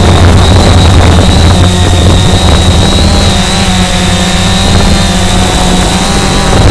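Quadcopter's motors and propellers running steadily, heard from the camera on board the drone: a loud, even low hum with a thin high whine over it.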